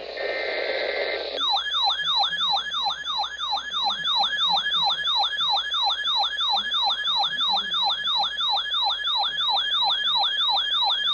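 Weather alert radio's siren alarm: a loud siren tone that sweeps down in pitch about three times a second, starting about a second and a half in after a moment of radio hiss. It signals an incoming alert, here a severe thunderstorm warning.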